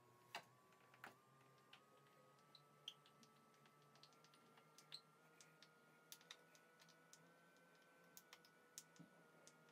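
Near silence, broken by faint, irregular small clicks and ticks from a hand screwdriver driving a screw through a brass foot into a walnut end-grain cutting board.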